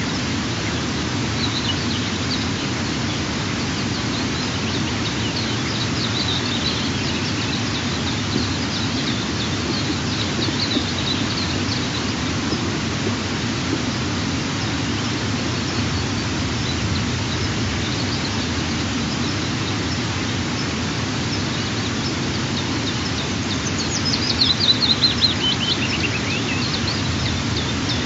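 Steady rushing outdoor background noise, with faint high bird chirps now and then and a louder run of quick calls falling in pitch near the end.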